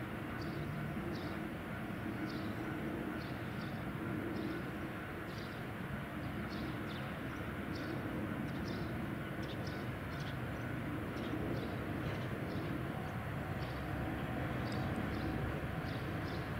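Seino Railway DD403 diesel locomotive's engine running steadily as it slowly approaches hauling loaded limestone wagons, the low rumble growing a little louder near the end. Short high chirps sound over it every second or so.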